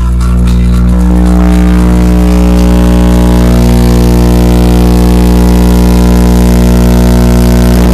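Car audio subwoofers playing one steady, very loud bass test tone for a sound-pressure-level meter reading, heard from inside the car, with a buzz of overtones above it. The tone holds level and cuts off suddenly at the very end.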